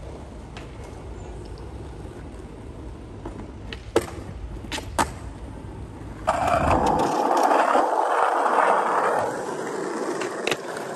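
Skateboard wheels rolling on concrete, with sharp clacks of the board about four and five seconds in. From about six seconds in comes a loud, harsh scrape of the board.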